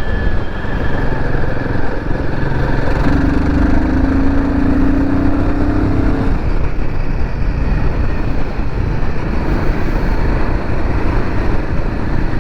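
Royal Enfield Himalayan 450's single-cylinder engine running steadily under way, with wind rushing over the microphone. A steady droning tone joins in for about three seconds partway through.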